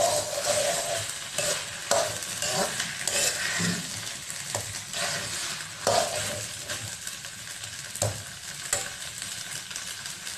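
A stainless steel spoon stirring and scraping sweet rice around a wok, with sharp knocks of metal on the pan every second or two over a steady sizzle of the rice frying.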